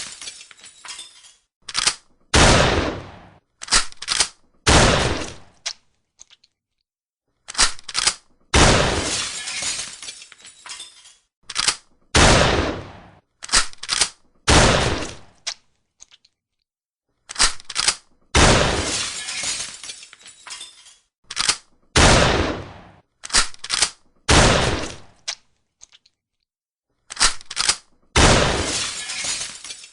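Shotgun fired again and again, the loudest reports trailing off over about a second, mixed with short sharp clacks of the gun being reloaded. The shooting comes in bursts with brief silences between them.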